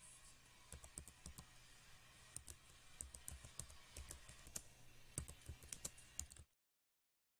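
Typing on a computer keyboard: a run of irregular key clicks, cutting off abruptly about six and a half seconds in.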